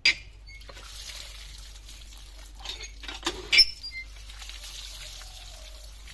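Water gushing from a cast-iron hand pump's spout into a plastic basket of small fish being rinsed. A sharp knock comes at the very start, and a few metallic clanks from the pump come around the middle.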